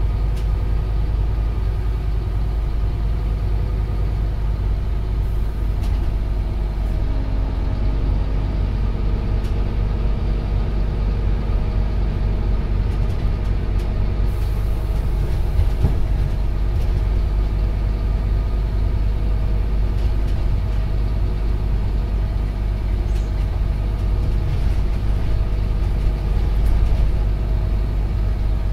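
Scania OmniCity CN230UB single-deck bus running under way, heard from inside the passenger saloon: a steady low diesel engine and drivetrain rumble with road noise.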